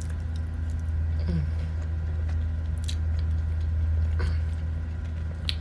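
Close-miked chewing of a mouthful of pasta, with a few small wet mouth clicks, over a steady low hum.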